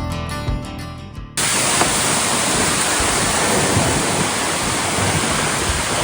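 Background music, then about a second and a half in an abrupt cut to a loud, steady rush of falling water, as from a waterfall.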